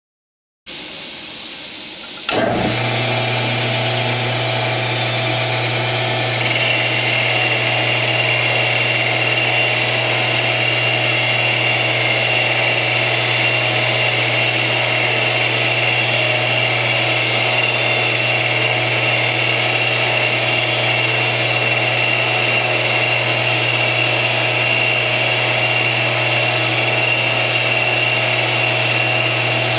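A Smithy combination lathe-mill-drill's motor starts about two seconds in, after a short hiss, and then runs steadily. It turns an aluminium bar while a boring bar with an aluminium-specific insert, used as a turning tool, takes a 30 thou cut along it. A thin, steady high whine joins about six seconds in and holds through the cut.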